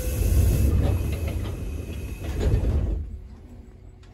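Rumble and hiss of a JNR 205 series electric train heard from inside the passenger car. It drops away sharply about three seconds in.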